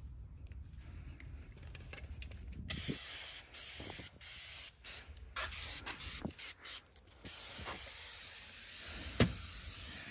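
Aerosol can of upholstery foam shampoo spraying onto car floor carpet, a hiss that starts a few seconds in and comes in several bursts with short breaks. A sharp knock sounds near the start of the spraying and a louder one near the end.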